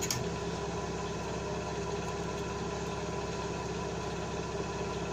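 A steady machine hum holding one pitch without change, with a light click right at the start.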